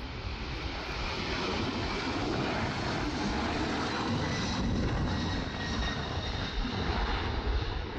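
Twin-engine jet airliner at takeoff thrust: a steady jet roar as it races down the runway, rotates and lifts off, with a faint high whine showing about halfway through.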